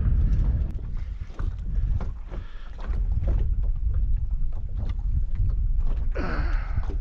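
Wind buffeting the microphone in an uneven low rumble, with scattered small knocks and water slaps against a small boat's hull. A brief higher-pitched sound comes near the end.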